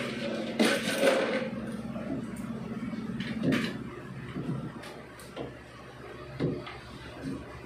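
Scraping and knocking of hardboard furniture panels as a mirror frame is handled and fitted onto a vanity cabinet: a longer scrape about a second in, then single knocks about once a second.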